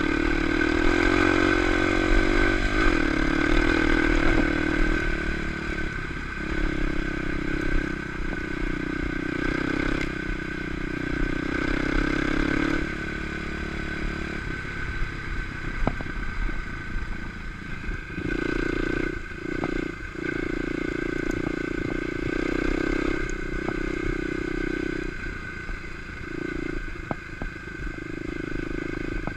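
Kawasaki KLX 250 single-cylinder four-stroke engine carrying the bike along a dirt track, its note coming and going every second or few as the throttle is opened and closed. Short knocks and rattles from the bike over rough ground, more of them in the second half.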